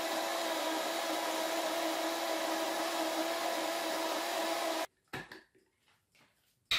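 Countertop blender running at one steady speed, mixing a liquid cake batter of milk, eggs, sugar, cornmeal and flour, then switched off abruptly about five seconds in. A couple of light knocks follow.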